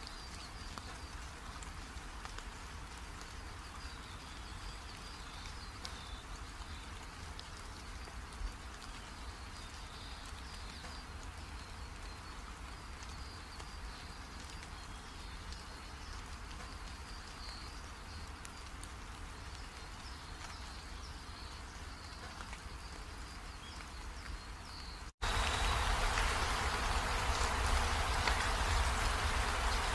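Steady background hiss with a faint, wavering high chirring. About 25 seconds in it cuts off abruptly, then gives way to a louder, even hiss like rain.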